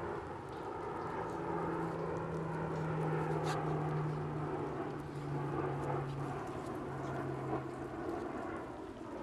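Airplane flying overhead: a steady low engine drone whose pitch slowly falls as it passes.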